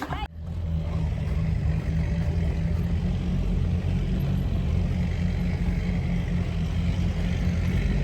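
A vehicle engine running steadily with a low, even drone, starting abruptly about a third of a second in.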